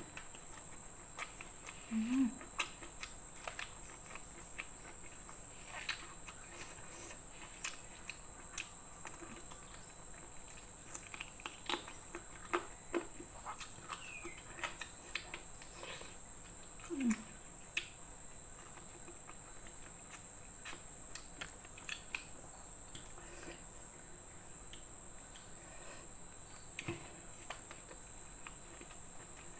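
Close-up eating sounds: scattered small clicks and smacks of a person chewing food, with a couple of brief closed-mouth hums. A steady high-pitched drone runs underneath.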